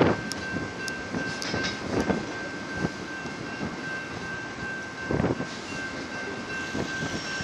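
Double-stack intermodal well cars of a long, underpowered freight train rolling slowly uphill past the listener: a steady rolling rumble with a few scattered knocks.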